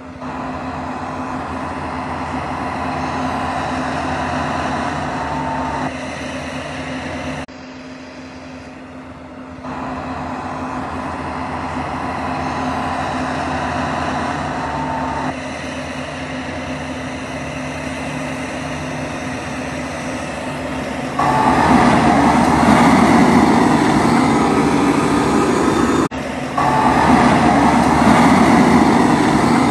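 Case IH Magnum 400 tractor's 8.7-litre FPT six-cylinder diesel running steadily under load while pulling a nine-furrow reversible plough, a constant drone with a higher whine. The sound cuts abruptly about seven and a half seconds in and again near 26 seconds, and is louder from about 21 seconds on.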